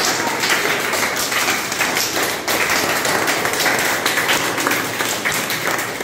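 A small group of children and adults applauding, with many quick hand claps overlapping.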